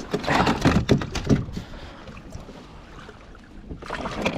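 Pedal-driven kayak moving across a lake: water noise along the hull. It comes in irregular bursts over the first second and a half and again near the end, with a softer, steady wash in between.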